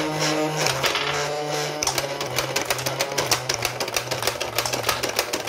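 Battery-operated Blaze Storm soft-dart toy machine gun firing on full auto: its motor whirring with rapid mechanical clicking as foam darts are fed and shot, the clicks coming faster about two seconds in.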